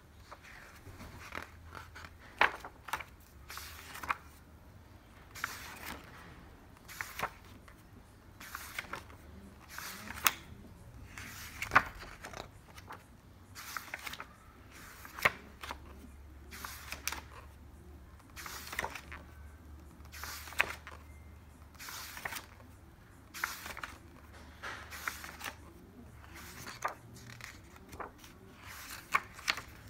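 Pages of a large hardcover book being turned by hand one after another, each turn a quick papery swish ending in a sharp flap, roughly one every second or two.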